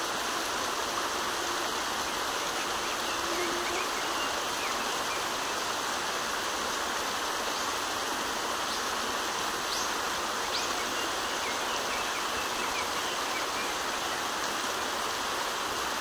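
Steady rushing of a mountain stream, with a few faint bird chirps now and then.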